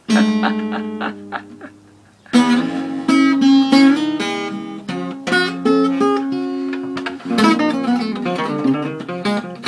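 Acoustic guitar played solo: a chord is struck and left to ring and fade, then about two seconds in a lively run of picked notes and chords begins, with fresh attacks again near the end.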